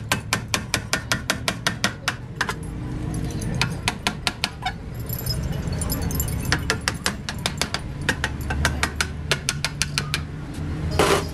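Hand hammer tapping on the steel wheel hub of a Bedford truck, in quick runs of sharp metallic taps, several a second, with short pauses between runs.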